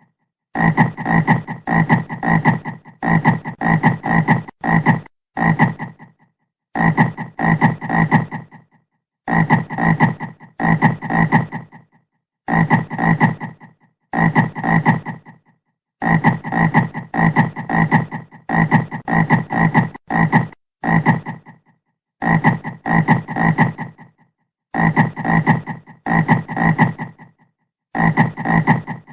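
Frog croaking: short repeated croaks in quick runs of two to four, with brief pauses between runs.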